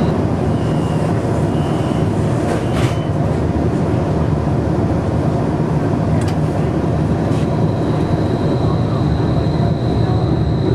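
Interior running noise of a streetcar under way: a steady low rumble of wheels on rail and traction gear, with a few faint ticks and a thin high steady whine that comes in about seven seconds in.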